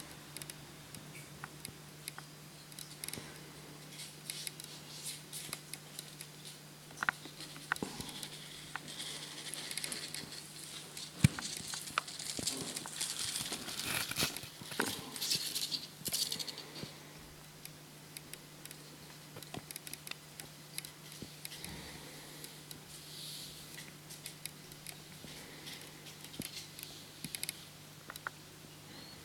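Handling noise: scattered clicks, taps and rustling, as of packages being picked up and moved, busiest around the middle, over a steady low hum.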